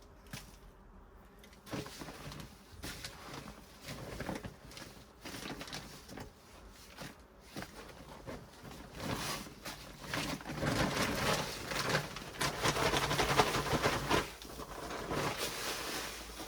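Potting soil and a grow bag being handled by hand: rustling and scraping with light knocks, getting busier and louder about halfway through.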